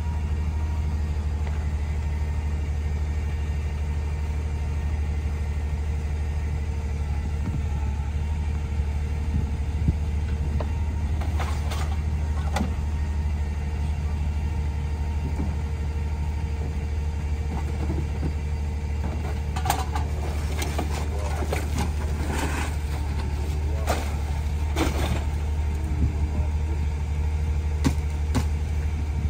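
Compressed-natural-gas engine of a Leach 2R-III rear loader garbage truck idling with a steady low hum. Knocks and clatters of trash cans and bags being dumped into the hopper come in twice around the middle, then in a cluster later on.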